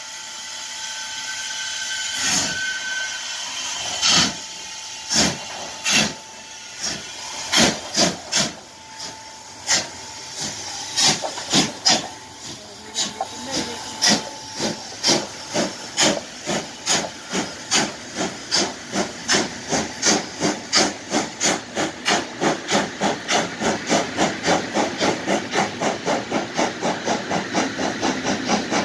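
Steam locomotive 01 180, a two-cylinder BR 01 Pacific, starting away: a hiss of steam, then exhaust beats about a second apart that quicken steadily to a fast run of about four a second as the train gathers speed.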